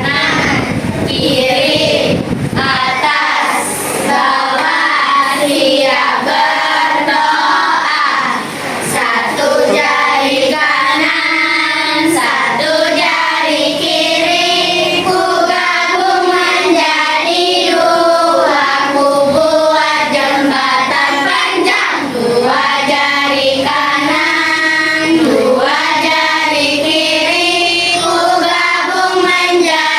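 A group of children singing a song together, with held notes of a steady melody. A low rumble sits under the first couple of seconds.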